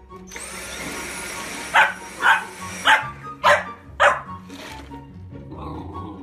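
Boxer puppy barking five times, about half a second apart, at a cordless stick vacuum. The vacuum's motor whines up at the start and cuts off about three seconds in. Background music plays underneath.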